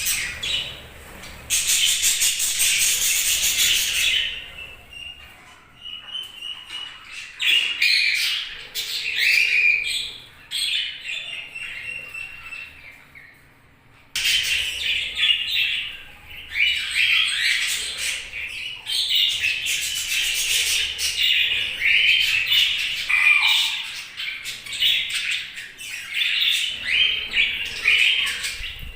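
Several budgerigars chirping, squawking and warbling together in quick, overlapping calls. The chatter is loud and harsh for the first few seconds, dies down near the middle and starts up again abruptly about halfway through.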